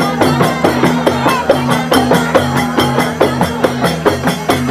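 Music with a fast, even percussion beat, about four strikes a second, over steady low notes that step from pitch to pitch.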